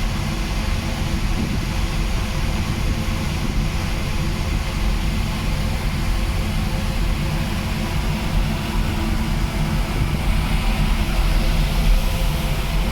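Strong wind buffeting the microphone, with the steady hum of the passenger ship Salvia Maru running beneath it. The wind gets a little louder near the end.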